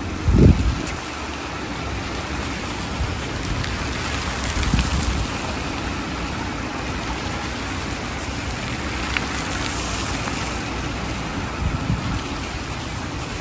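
Plaza fountain's water jets splashing into a shallow pool, a steady hiss of falling water. Wind buffets the microphone now and then, most strongly about half a second in.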